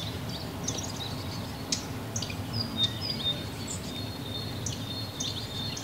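Woodland birds chirping, with many short high chirps and, from about halfway in, a thin high note held for a couple of seconds, over a steady low background rumble.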